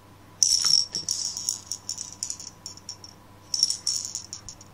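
Small balls rattling and clicking inside a clear plastic puzzle case as it is spun about its center: a dense run of clicks starting about half a second in, then a second shorter run near the end.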